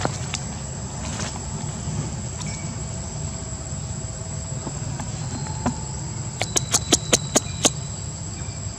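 Steady high-pitched insect drone over a low rumble, with a quick run of about eight sharp clicks near the end.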